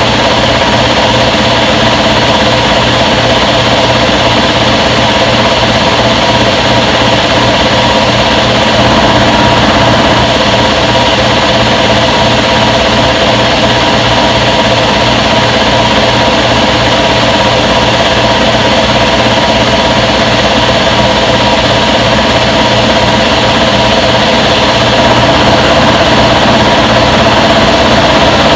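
Front-load washing machine running with a steady, loud motor whir.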